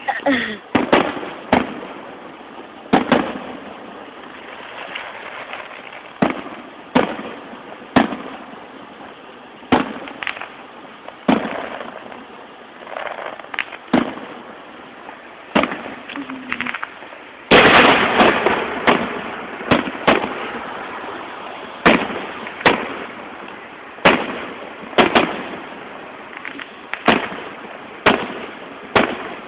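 Aerial firework shells bursting in a display: a long series of sharp bangs at irregular intervals, each trailing off in a brief echo. A little past halfway comes a dense volley of bangs, the loudest part.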